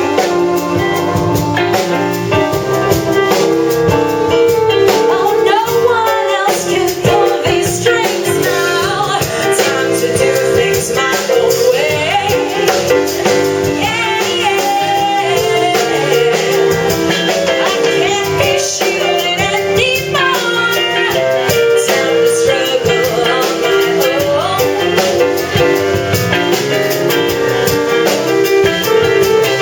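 Music: a song with a singing voice over instrumental backing with drums, playing steadily throughout.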